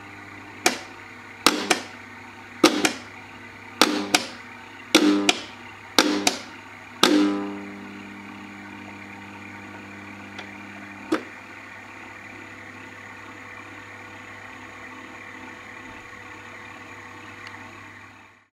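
Blacksmith automaton's hammers striking its small metal anvil: sharp ringing clanks, mostly in quick pairs about once a second for seven seconds, then a single strike a few seconds later. Under them the belt-driven clockwork mechanism runs with a steady hum.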